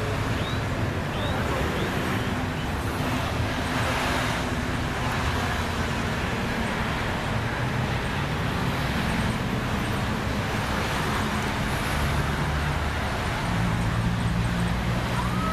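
Road traffic: a steady low hum of vehicle engines, with a car passing about four seconds in.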